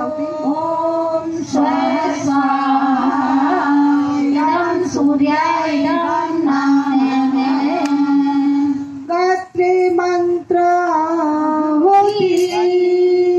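A woman's voice singing a slow, devotional-sounding melody with long held notes, with a couple of short breaks about nine and ten seconds in.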